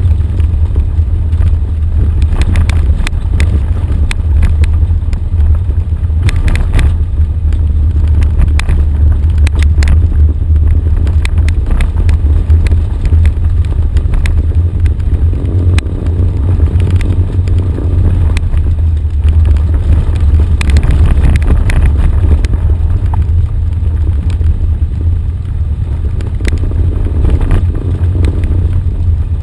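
Off-road vehicle driving down a rough gravel track, picked up by a camera on the hood: a loud, steady low rumble of engine and wind on the microphone, with frequent clicks and knocks from stones and rattling parts.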